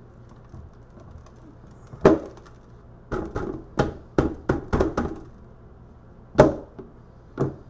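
Hand knocking on a plastic sieve seated in a plastic gold pan, to shake fine powder through the screen. There are about ten sharp knocks: one single knock, then a quick run of seven, then two more spaced apart.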